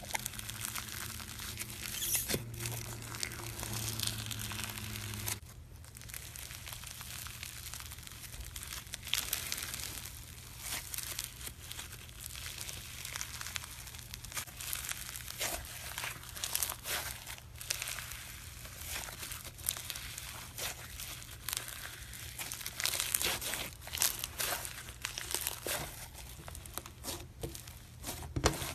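Thick, grainy slime being pulled out of a tub, stretched apart and pressed by hand, making dense, irregular crackling and crinkling with tearing sounds as it stretches.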